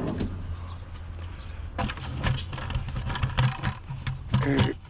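Vehicle engine idling with a steady low hum, with a run of sharp clicks and knocks from about two seconds in.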